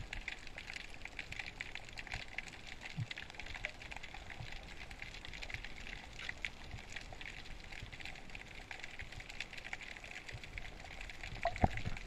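Underwater ambience recorded on the seabed: a steady dense crackle of fine clicks. A single sharp low knock sounds near the end.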